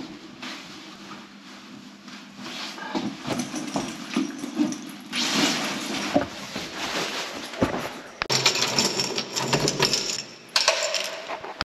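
Fabric and bag rustling and handling sounds as a coat and backpack are handled, irregular, with louder scrapes about halfway through and again near the end.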